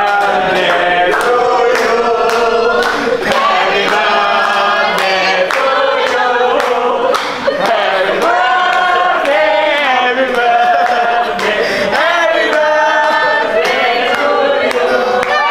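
A group of people singing together in chorus, with steady hand-clapping in time.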